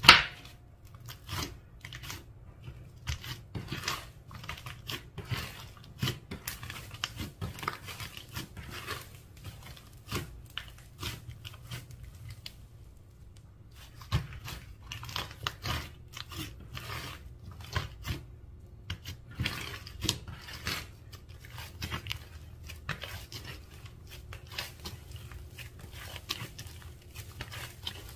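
Clear slime being squished and stretched by hand, making irregular sticky clicks, crackles and pops, with a sharp snap at the very start and a short lull about twelve seconds in.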